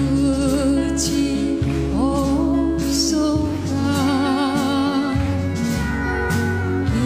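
Music: a song with a voice holding long notes with vibrato over a steady bass and backing accompaniment.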